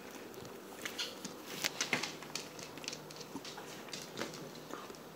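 Faint, scattered soft clicks and taps as a small dog takes a french fry and moves about on a tile floor.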